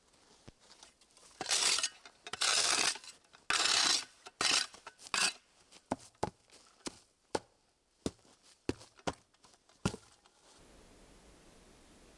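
A run of handling sounds: five short bursts of rustling or tearing, then a string of light clicks and knocks that stops about ten and a half seconds in.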